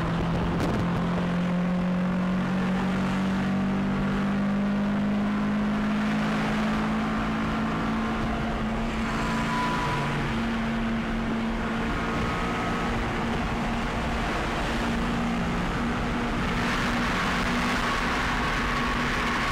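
Car engine droning at highway speed over steady tyre and wind noise, its pitch rising a little over the first several seconds and then holding steady.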